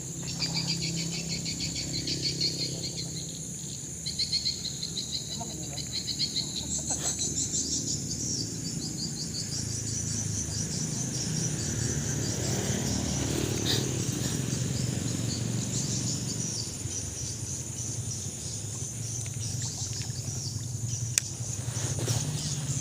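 Insects trilling in a steady chorus. A pulsing high trill is joined about seven seconds in by a second, higher pulsing trill, over a low steady hum.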